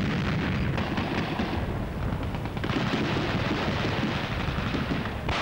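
Battle noise from war footage: a continuous low rumble shot through with rapid cracks of gunfire and explosions.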